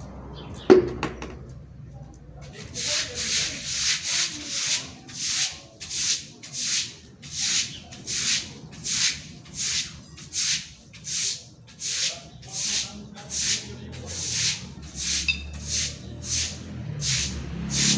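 Steady rhythmic scrubbing strokes, about three every two seconds, each a short hiss. A single sharp knock comes about a second in, before the strokes start.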